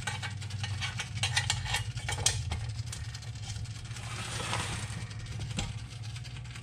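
Chrome-plated steel housing of a Toastmaster 1B9 toaster being worked loose from its base: a string of sharp metallic clicks and knocks, with a sliding scrape about four seconds in, over a steady low hum.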